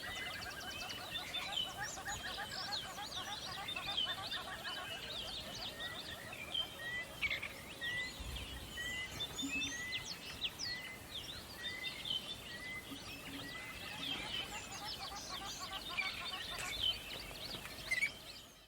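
A mixed chorus of wild birds chirping and twittering, many overlapping calls. Through the middle, one bird repeats a short upward-sliding note about once a second.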